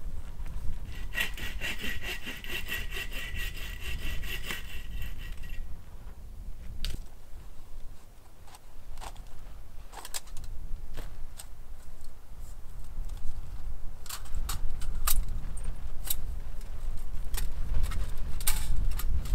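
Folding bow saw cutting a dead branch in quick, even strokes for about four and a half seconds, followed by scattered sharp clicks and taps of handling wood, over a steady low rumble.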